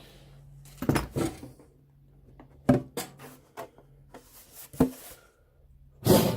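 Handling knocks and clicks of a drill and a plastic fuel tank being moved and set down: a scattered series of sharp knocks, with a short louder scraping burst near the end.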